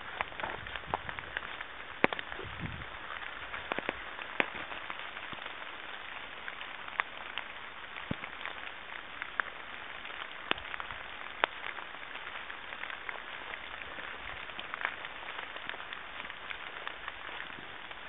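Steady rain falling through woodland, with frequent sharp, irregular drops pattering close by.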